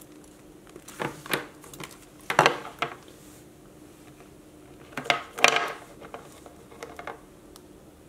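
A leather belt with a gold-finish metal buckle being handled and set down on a table: a few scattered metallic clinks and knocks in small clusters, the loudest about two and a half and five and a half seconds in.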